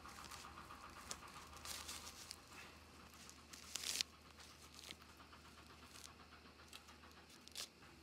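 Leafy plant stems rustling and crackling as they are handled close to the microphone, in faint scattered bursts with a louder rustle a little before four seconds in.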